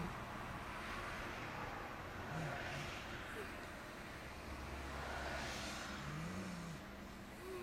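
A sleeping person snoring without a Nastent nasal stent, breaths swelling and fading about every two to three seconds with a low rattle on one of them, the snoring that comes with the sleeper's sleep apnea when the stent is left out.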